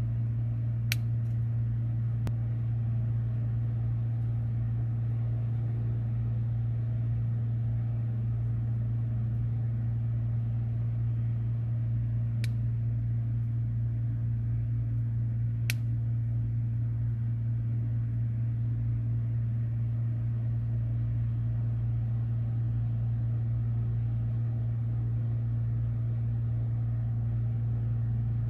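A steady low mechanical hum, with a few light sharp clicks: two in the first couple of seconds and two more around the middle.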